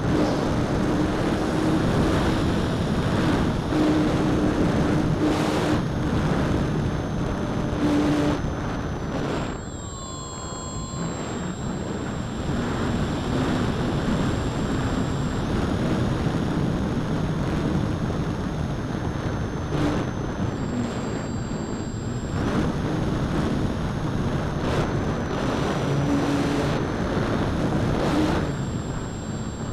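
A radio-controlled model motor glider's motor and propeller running in flight, heard from on board with wind rushing over the microphone. A thin high whine steps up and down with the throttle, and about ten seconds in the sound briefly drops and its pitch sweeps before the motor comes back.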